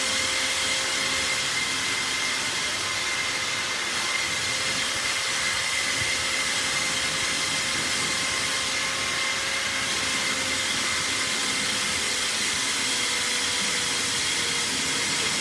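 A steady machine whine over a hiss, like an electric motor running continuously without letting up.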